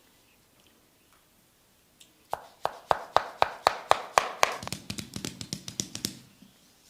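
Drumsticks rapidly tapping on a person's body in a percussive massage. The strikes start about two seconds in and go at about four a second for some four seconds, the later ones with a duller, deeper thud under them.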